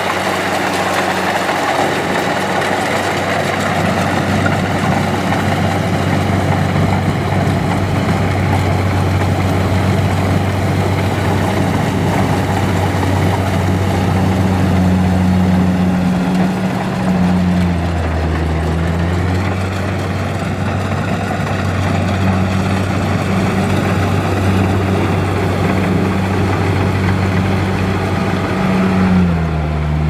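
Kubota DC-70 Plus rice combine harvester working in the crop: its diesel engine runs steadily over the clatter of the cutting and threshing gear. The engine pitch sags briefly a little past halfway and again just at the end.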